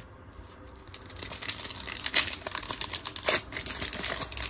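Foil Pokémon booster pack wrapper crinkling and crackling as it is handled, a dense run of sharp crackles starting about a second in.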